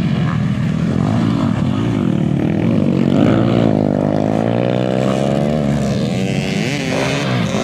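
Several motocross dirt bike engines racing past, revving hard, their pitch rising and falling as the riders accelerate and shift; one bike swells loudest a little past the middle as it goes by.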